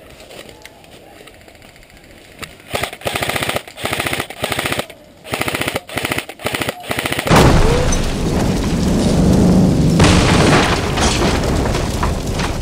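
Airsoft electric guns firing on full auto: several rapid bursts of fast clicks a few seconds in. About halfway through they give way to a loud, even rushing noise that lasts about five seconds.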